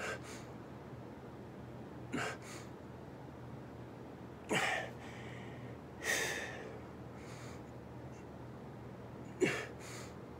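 A man's sharp, heavy breaths during push-ups, one short burst about every two seconds, some in quick pairs, over a steady low room hum.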